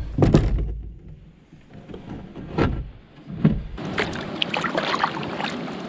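Several hollow knocks and thumps on a canoe hull in the first four seconds, as it is put in and loaded at the water's edge, then water splashing and lapping against the canoe.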